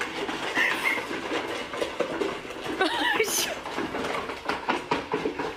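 Plastic pet food bowls clattering and scraping on a tiled floor as several small pets eat kibble from them and nudge them about, with a quick run of irregular clicks and knocks.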